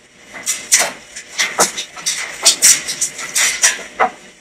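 Close-miked eating sounds: irregular wet smacks and clicks of chewing and lip smacking as meat from turkey necks is eaten.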